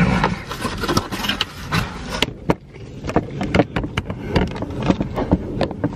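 Handling noise: irregular clicks, taps and scrapes as the camera and the cardboard pizza tray are moved about, over a low steady rumble.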